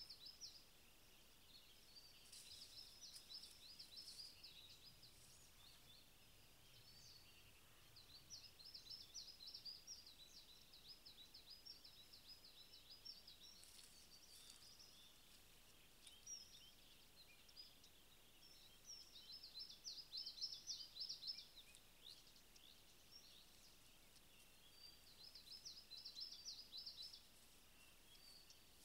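Faint songbird song: repeated bouts of rapid, high-pitched chirps and trills, each a second or three long, over a quiet outdoor background.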